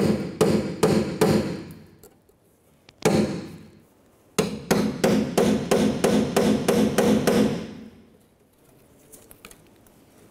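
Steel hammer rapping on a socket seated over a rusted 10 mm nut, each blow a sharp metallic strike with a short ring, to shock the seized nut loose. A run of blows, a single blow about three seconds in, then a quicker even run of about a dozen blows at roughly four a second, stopping near the end.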